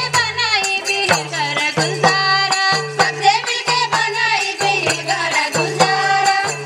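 Tharu folk dance music: a quick, steady hand-drum beat with a pitched melody line over it.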